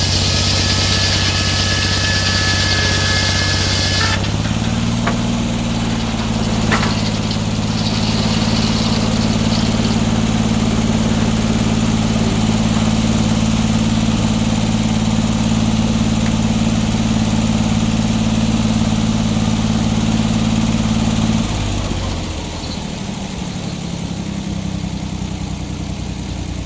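Sawmill engine running steadily at working speed. For the first four seconds a high hiss and whine rides over it and then stops abruptly. About 21 seconds in the engine slows and drops to a lower idle.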